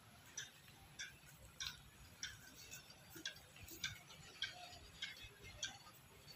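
Faint, evenly spaced ticking, a little under two sharp ticks a second, over a low background hum.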